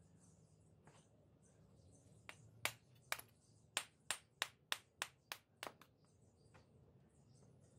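A brick hammer knocking at a red clay brick held in the hand, trimming it to size: a quick run of about ten sharp knocks, roughly three a second, starting a couple of seconds in and stopping just past halfway, with one fainter knock after.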